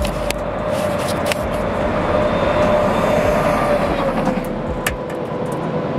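Road traffic rushing past close by: a steady roar with a faint tone that slowly falls in pitch, and a few scattered clicks.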